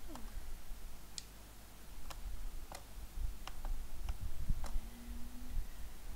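Computer mouse and keyboard clicks: about eight sharp single clicks at uneven intervals while a 3D model is being edited. A short, steady low hum sounds about five seconds in, over a faint low rumble.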